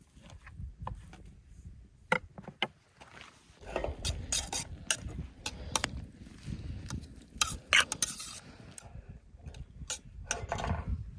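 Metal utensil stirring, clinking and scraping in a cooking pot, with irregular sharp clinks of varying loudness.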